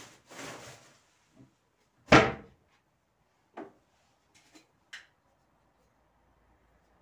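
Kitchen cabinet shut with a bang about two seconds in, followed by a few lighter knocks and clatters.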